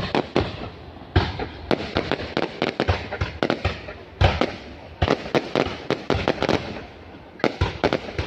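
Fireworks going off: sharp bangs in irregular quick clusters, several a second, with a rumbling echo lingering between the clusters.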